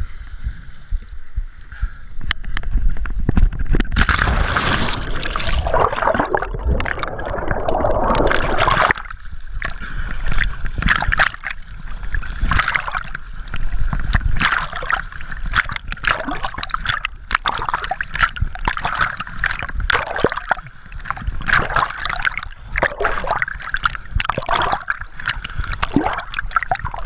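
A person jumping into lake water about two seconds in, followed by continuous splashing, sloshing and gurgling as they swim, heard from a camera moving between the surface and underwater. A faint steady high tone runs underneath.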